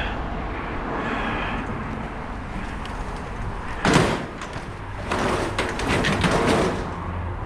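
Scrap being loaded onto a truck and trailer: one sharp bang about four seconds in, then a couple of seconds of clattering and scraping, over a vehicle's steady low rumble.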